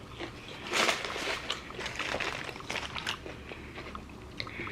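A person chewing food, with short wet mouth clicks and a louder burst of noise just under a second in.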